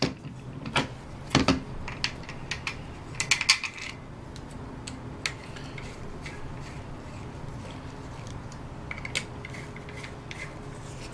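Small hard parts of a water-cooling pump clicking and clattering as they are handled and fitted together, busiest in the first four seconds, with a few light clicks again near the end over a faint steady background hum.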